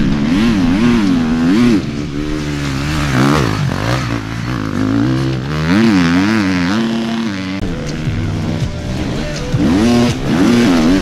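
Enduro dirt bike engines revving hard, the pitch rising and falling in quick surges with the throttle. The engine note changes a couple of times as the sound cuts from one bike to another.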